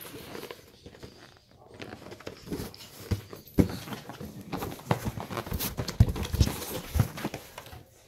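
Latex balloons being grabbed, hugged and batted about by a capuchin monkey: a run of irregular soft thumps and rubbing knocks, busiest and loudest in the second half.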